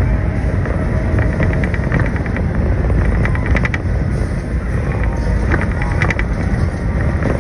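Amusement-park ride train running along its steel track: a steady low rumble with several short runs of rapid clicking.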